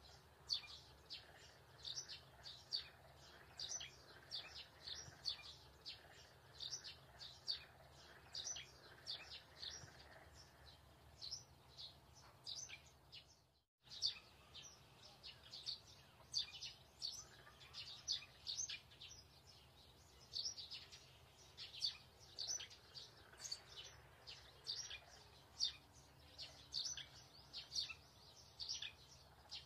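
Small birds chirping, several short high chirps a second, over a faint low steady hum. The sound drops out completely for a moment about halfway through.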